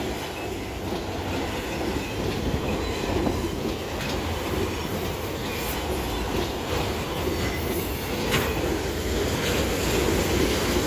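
Autorack freight cars of a BNSF train rolling past: a steady rumble of steel wheels on the rails, with scattered sharp clicks from the wheels crossing rail joints.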